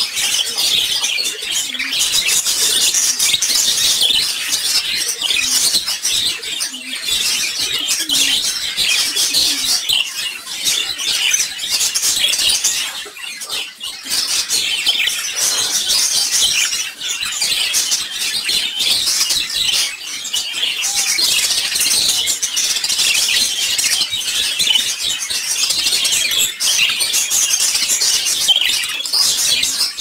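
Budgerigars chattering in a cage: a steady, busy stream of high chirps and warbles, with a short lull about halfway through.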